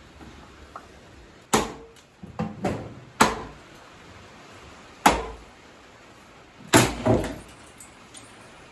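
A sledgehammer striking a Ford Focus engine: about six heavy metal-on-metal blows at irregular intervals, each with a brief ring, the last two close together.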